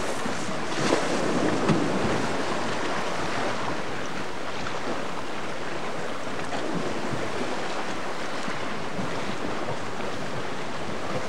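Steady wind and sea surf, with wind buffeting the microphone.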